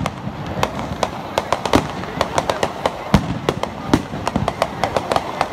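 Aerial fireworks bursting and crackling: a rapid, irregular run of sharp bangs, several a second.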